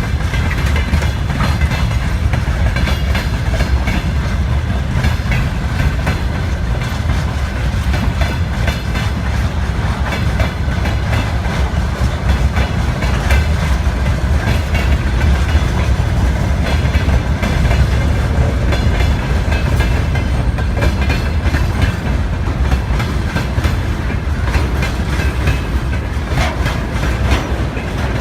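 Freight train rolling past: a steady low rumble with wheels clicking over the rail joints.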